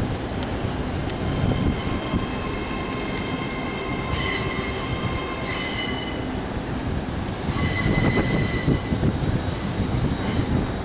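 Train wheels squealing against the rails in several drawn-out, high-pitched stretches over a steady low rumble of the moving train.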